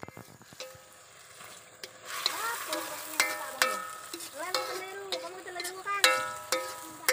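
Chopped greens sizzling in hot oil in an aluminium pan, starting about two seconds in, while a metal spoon stirs them, knocking and scraping against the pan so that it rings with each strike.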